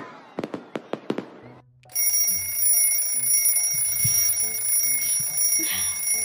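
A few short sharp clicks, then about two seconds in a cartoon alarm clock starts ringing: a steady, high electronic alarm tone over faint low stepping notes.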